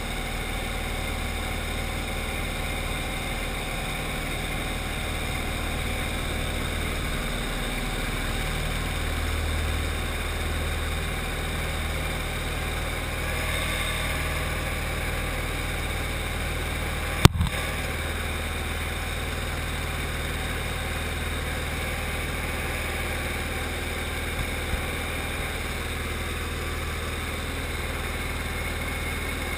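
Light aircraft's piston engine and propeller running steadily at takeoff power through the takeoff roll and climb-out, heard from inside the cockpit as a constant drone. A single sharp click sounds a little past halfway.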